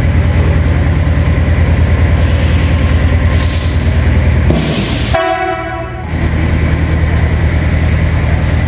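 Diesel engine of a Tecnotren light-rail railcar running with a steady low throb. About halfway through, the engine sound drops out for under a second while a short buzzing tone sounds.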